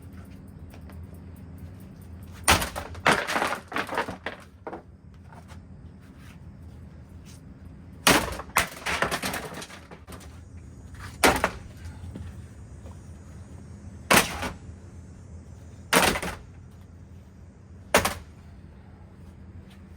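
A ceiling fan being smashed: a run of loud, sharp crashes and cracks, some followed by brief rattling, spaced a few seconds apart over a steady low hum.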